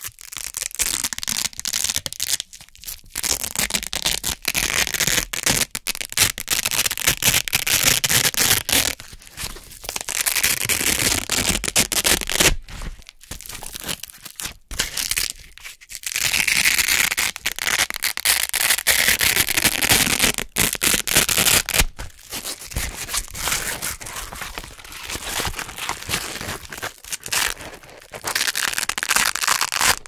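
Velcro hook-and-loop being peeled apart close to the microphone: a white hook-side circle pulled off blue loop fabric, giving long crunchy ripping stretches with short pauses between pulls.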